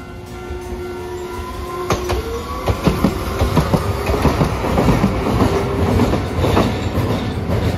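Hiroshima Electric Railway 3900-series articulated tram passing close by, its wheels clacking over rail joints in a rapid, uneven run of knocks that starts about two and a half seconds in and grows louder. Under it runs a steady hum that rises slightly in pitch about two seconds in.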